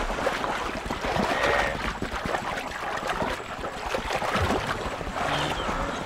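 Heavy splashing and churning water as a Nile crocodile grips a struggling wildebeest in a river.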